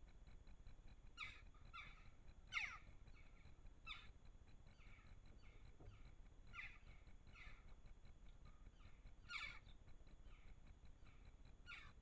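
Jackdaws calling: about nine short, sharp calls, each falling in pitch, at irregular intervals, faint over a steady hiss, the loudest about two and a half seconds in.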